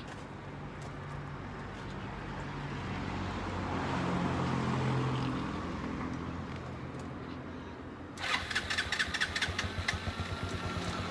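A motor vehicle engine hums, swelling and then fading over several seconds as it passes. About eight seconds in, a closer, rapidly pulsing, rattling engine sound starts abruptly.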